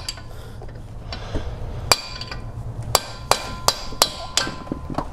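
Hammer tapping on a punch at the end of a front CV axle shaft to drive its splined end out of the wheel hub. Sharp metal strikes that ring, a few at first and then coming faster from about three seconds in.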